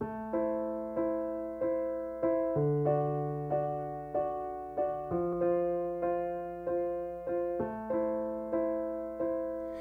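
Solo piano playing a slow song intro: chords struck evenly about every two-thirds of a second over a held low note that changes every two and a half seconds or so.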